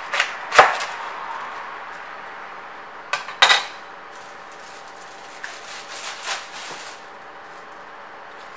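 Chinese cleaver chopping into a whole cauliflower and knocking through onto a plastic chopping board: a couple of sharp chops about half a second in, the second the loudest, and two more a little after three seconds. Softer rustling and handling of the cut cauliflower and its leaves follows.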